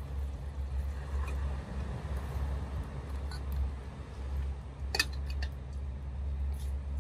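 Steady low rumble with a few small knocks as an aluminium kettle and a bottle are handled, and one sharp metallic clink about five seconds in.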